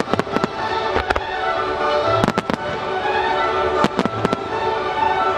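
Aerial fireworks from a Ruggieri display: a string of sharp shell bursts, bunched in quick clusters about two seconds in and again about four seconds in, over steady music.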